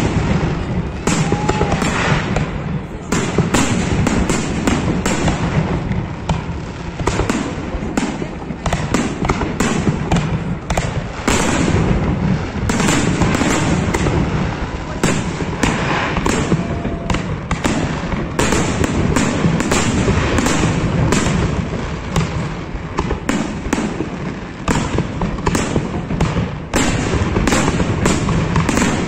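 Fireworks display: a dense, continuous barrage of aerial shell bursts, many bangs following close on one another without a break.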